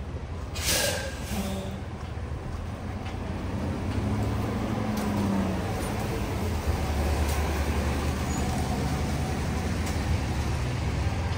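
A heavy vehicle in street traffic: a short hiss of air brakes about a second in, then a low engine sound that gets louder over the following seconds.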